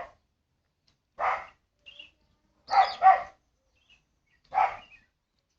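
Small dog barking: four short barks spaced about a second apart, two of them in quick succession near the middle.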